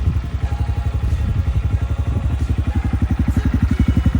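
Honda Grom's single-cylinder engine idling through an aftermarket exhaust, a steady, even train of low exhaust pulses at roughly ten a second.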